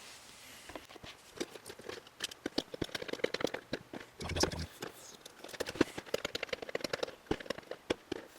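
Cardboard box of miniatures being handled and opened: irregular clicks, taps and rustles of the packaging, starting about a second in.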